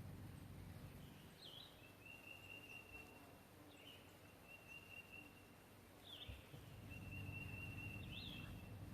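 Faint bird call repeating about every two seconds: a short chirp, then a long, level high whistle.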